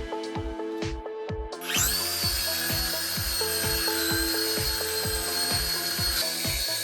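Background music with a steady beat; a little under two seconds in, a small electric motor starts up with a high, steady whine that runs on under the music.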